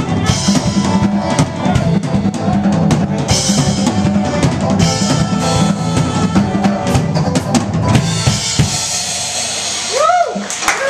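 Live band playing an instrumental tune: drum kit with kick drum and snare, electric bass, and saxophone and electric guitar lines on top. The playing thins out about eight and a half seconds in, and a voice comes in near the end.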